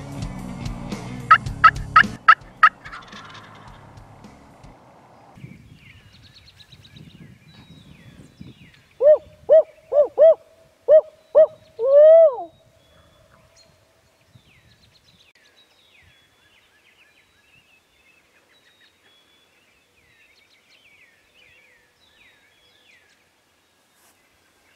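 A wild turkey gobble near the start. About nine seconds in comes a series of six short hoots with a longer, falling last note, in the rhythm of a barred owl's call. Faint high bird calls follow.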